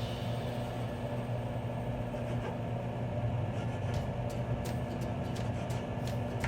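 Steady electric hum of a running kitchen appliance, most likely the microwave heating the vegetables, with a few faint knife taps on a cutting board in the second half.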